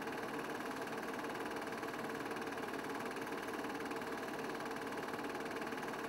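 Film projector running: a steady mechanical whirr with a fast, even flutter and no change in pitch or level.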